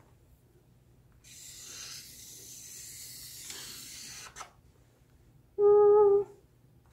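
Felt-tip marker drawing a long stroke across flip-chart paper, a steady scratchy hiss for about three seconds. Near the end, a woman hums a short steady 'mm', the loudest sound.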